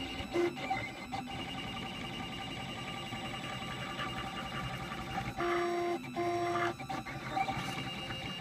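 Printrbot 3D printer running a print: its stepper motors whine in steady tones that shift in pitch as the print head moves, with two louder half-second notes about five and a half seconds in and a few light clicks.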